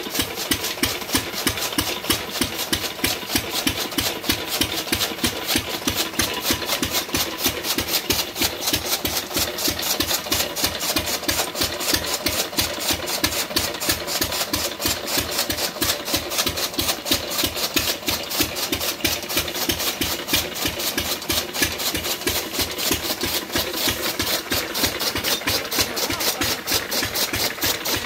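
10 hp Lister-type single-cylinder diesel engine running steadily with a fast, even knocking beat, driving a belt-fed flywheel chaff cutter that chops green fodder.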